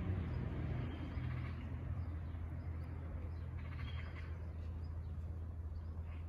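Outdoor ambience of small birds chirping a few times over a steady low rumble.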